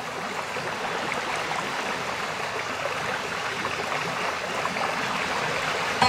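Running water trickling and bubbling steadily, with no music.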